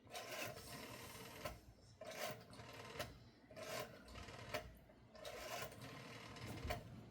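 Rotary telephone dial being turned and spinning back, several times in a row: each return is a short whirring tick-run about a second long that ends in a click as the dial stops, one run for each digit dialed.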